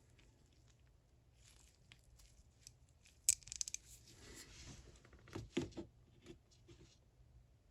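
Metal hand ratchets being handled and swapped: mostly quiet, then about three seconds in a sharp click followed by a quick run of small clicks and some rustling, and a couple of knocks a little later.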